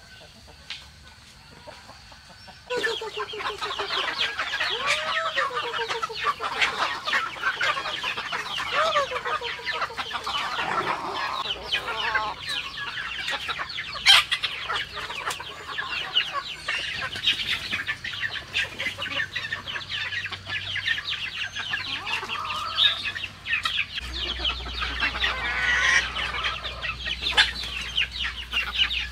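A flock of chickens clucking busily while feeding, a dense run of short clucks and calls with the odd crow, starting suddenly about three seconds in after a quiet opening.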